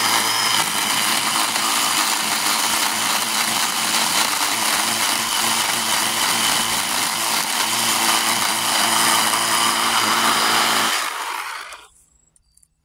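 Craftsman V20 10-inch cordless chainsaw cutting into a very hard hardwood stump, running steadily under load, its chain dulling in the wood. It winds down and stops about eleven seconds in.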